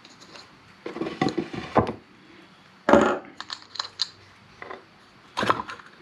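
Metal clicks and clatter of hand tools on a small-engine carburetor as its float bowl is cracked loose and taken off, with the parts knocking against a wooden board. Irregular sharp clicks, the loudest about three seconds in.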